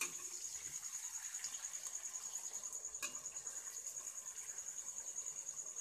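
A cricket chirping in a high, rapid, even trill, over the faint hiss of chicken pieces frying in oil. A metal spatula scrapes against the kadhai at the start and again about three seconds in as the pieces are turned.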